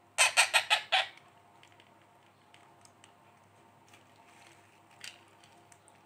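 Week-old Indian ringneck parakeet chick giving a rapid run of five harsh begging squawks right at the start, then a single fainter call near the end.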